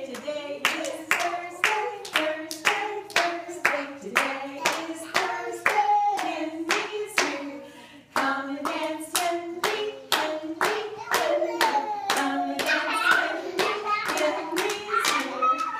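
Singing of a children's circle-time song, accompanied by steady hand clapping in time, about two claps a second.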